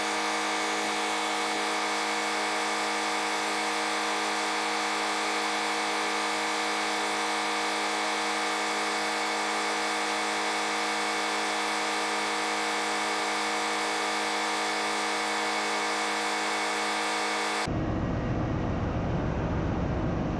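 Turning gear of a MAN B&W 6S60MC-C main engine slowly turning the engine over through its toothed flywheel: a steady whine of many held tones from the electric motor and gearing. Near the end it cuts to a broader, lower engine-room rumble.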